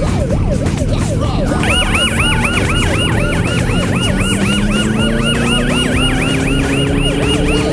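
A siren going in a fast yelp, about four sweeps a second, starts about two seconds in over the steady running of motorcycle engines. One engine rises slowly in pitch as the bike speeds up.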